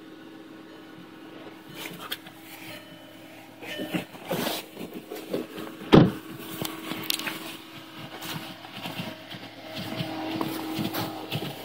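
Snow being brushed and scraped off a car's windshield and side window in short strokes, with one sharp knock about six seconds in. Under it runs the steady hum of the 2009 Volkswagen Jetta's engine idling just after a cold start.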